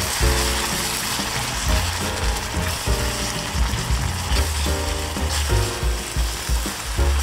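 Background music with a bass line and chords, over the sizzle and bubbling of a thick cheesy cream sauce simmering in a pan as it is stirred with a wooden spatula.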